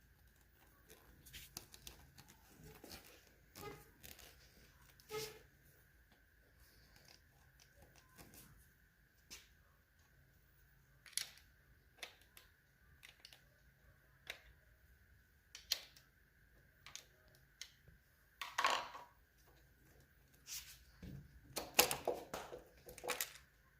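Scattered clicks and light knocks of timing-chain parts being handled and worked off a Ford 5.0 Coyote engine during disassembly. A denser clatter comes about 19 seconds in and again in the last few seconds.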